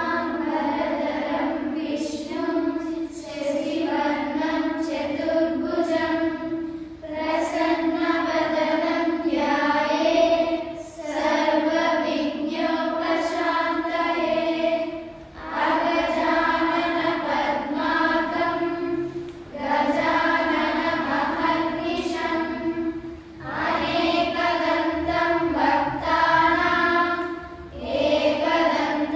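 A group of schoolchildren, boys and girls, chanting shlokas in unison on a steady pitch, in phrases of about four seconds with brief pauses for breath between them.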